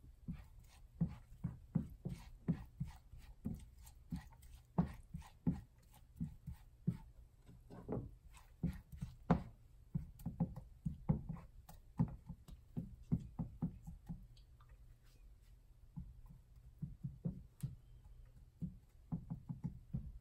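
Silicone spatula knocking and scraping against a nonstick frying pan while chopped green onions are stirred in oil, irregular taps two or three a second, with a short lull about two-thirds of the way through.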